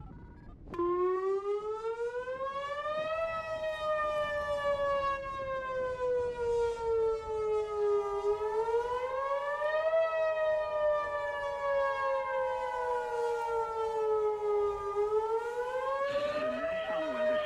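Whelen WPS-2905 electronic outdoor warning siren sounding its wail (attack) signal for a tornado warning. It cuts in suddenly about a second in, then slowly rises and falls in pitch, each cycle taking about seven seconds.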